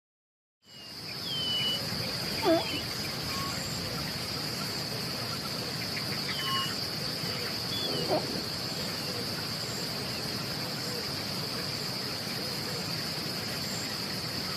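Steady high-pitched insect drone, like cicadas or crickets, starting abruptly under a second in, with two short animal cries standing out above it.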